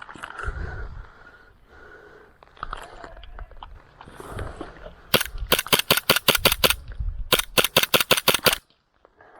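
Airsoft gun firing two rapid strings of shots, each lasting over a second with a short pause between, after a few seconds of soft rustling movement.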